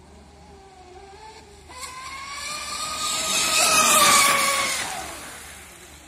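TFL Zonda RC speedboat on its stock electric motors racing past: a high motor whine with a hiss of spray that swells to a peak about four seconds in, the pitch dropping as it goes by, then fades away.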